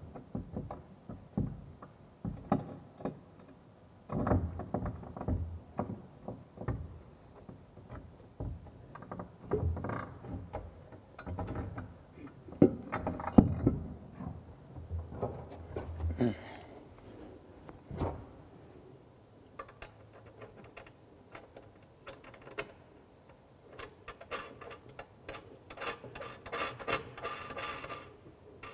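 Irregular metallic clicks and knocks of a spanner working the fixing bolts of a wall-hung wash basin, with a quicker run of clicks near the end.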